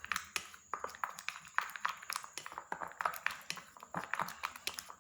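Irregular light clicks and taps, several a second, of a spatula and plastic containers being handled at a mixing bowl.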